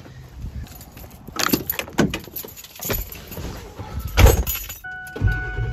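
A few knocks and rattles as a large dog climbs into a truck's cab and keys are handled. Near the end a steady dashboard chime starts, and then the truck's diesel engine starts up with a low rumble.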